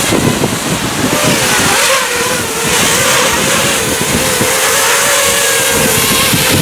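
Racing quadcopter's four Racerstar BR2205 2600 kV brushless motors with three-blade 5-inch props whining on a 3-cell battery as it hovers close. The pitch wavers for the first couple of seconds, then holds nearly steady. Gusting wind buffets the microphone.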